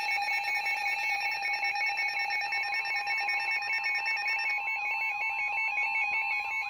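Several emergency alert tones sounding at once from weather radio receivers: steady attention tones under a rapidly pulsing alarm beep, with a repeated rising-and-falling warble joining about four and a half seconds in.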